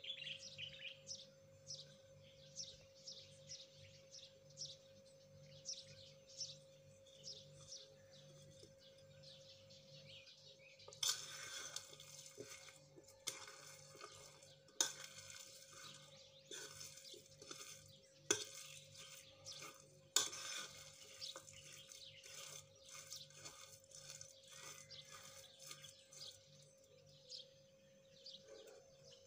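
Metal spoon stirring and scraping a stale brioche and apple mixture in a ceramic bowl, clinking sharply against the bowl several times. Before the stirring, birds chirp in quick repeated calls.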